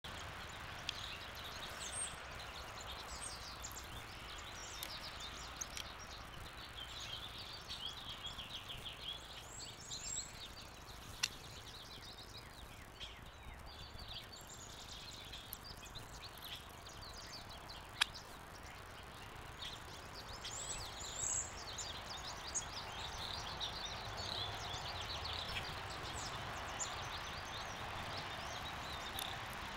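Small songbirds chirping and trilling in the background over a steady outdoor hum, with two sharp clicks in the middle stretch.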